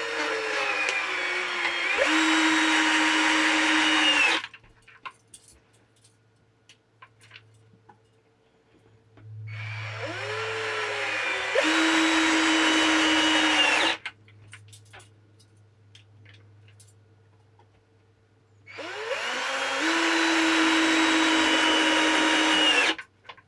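Viwko 20 V cordless drill in screwdriver mode, first gear, driving three 40 mm Torx wood screws into timber one after another. Each screw is a run of motor whine of about four to five seconds that rises at the start, goes steady and louder for the last couple of seconds as the screw sinks in, then stops suddenly, with short pauses and small clicks between screws.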